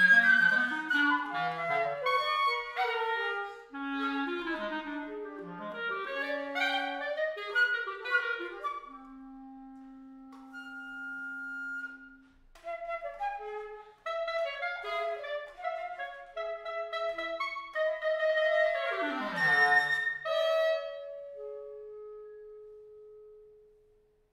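Alto flute and bass clarinet playing a contemporary chamber duo. Quick interlocking runs give way to long held notes, one of them low. A steep swoop down in pitch comes near the end, and then sustained notes fade away to nothing.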